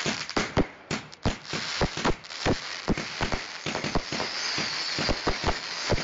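Fireworks going off: a rapid, irregular string of bangs and crackles, several a second, over a steady hiss.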